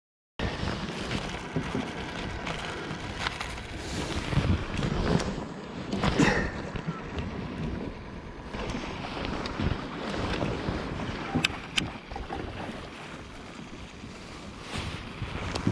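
Wind buffeting the microphone over open sea water, starting after a brief moment of dead silence, with a louder gust about six seconds in and two sharp clicks a little before twelve seconds.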